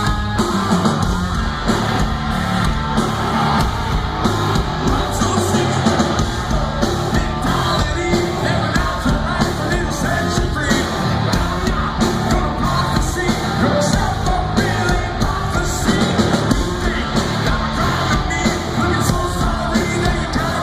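Live hard rock band playing loudly, a singer yelling over steady pounding drums and full-band instruments.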